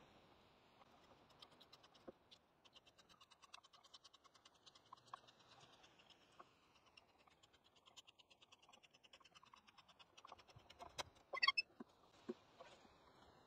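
Hand auger with a wooden T-handle and spiral bit boring into a log: a faint, rapid run of scratching ticks as the bit cuts into the wood, with a few louder clicks near the end.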